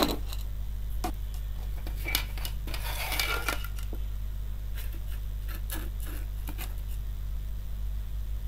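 A large steel kitchen knife being handled and set against a laptop charger's cable to cut off the old wire: scattered light clicks and scrapes, with a brief busier scraping about three seconds in, over a steady low hum.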